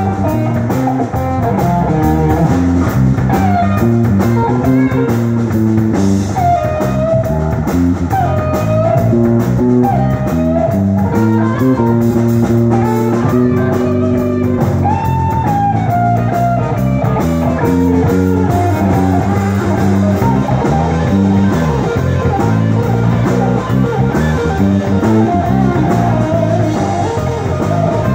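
A live blues-rock band playing: an electric guitar over a drum kit.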